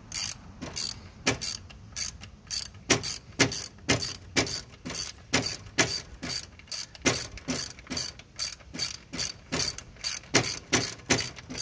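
Ratchet wrench clicking steadily, about three clicks a second, as it turns the alternator's belt-tension adjuster to slacken the drive belt.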